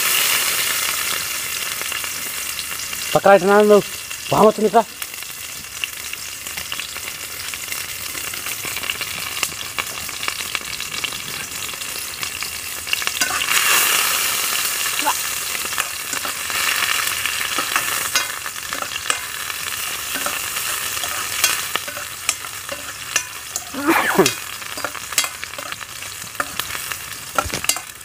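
Sliced onions sizzling in hot oil in a pan over a wood fire, stirred with a metal spoon that clicks and scrapes against the pan; the sizzle swells louder about halfway through. Two short pitched sounds come a few seconds in, and another near the end.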